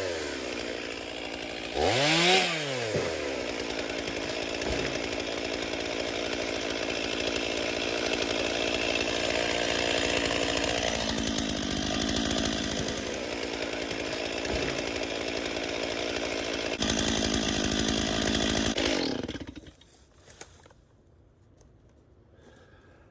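Stihl chainsaw revved once, then running steadily under load while cutting into a hung-up tree, then shut off about 20 seconds in. The last few seconds are near quiet.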